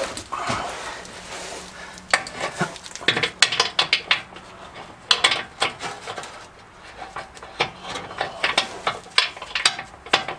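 Metal clinking and clattering from hand tools and steel parts being handled and knocked together, in irregular clusters of sharp clicks.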